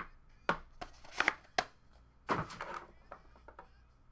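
Clear plastic card case set down and handled on a wooden tabletop: an irregular string of sharp knocks and clicks, loudest just over a second in and again about two and a half seconds in.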